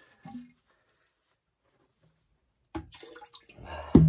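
Handling of an emptied blue plastic water-filter housing: a few faint knocks and a little water sloshing. Near the end comes a sharp knock that rings hollow and dies away over about a second.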